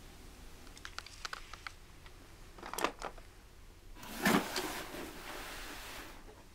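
A cardboard box being handled and opened: a few light clicks and taps, a short scrape, then a louder rustling scrape about four seconds in that fades away.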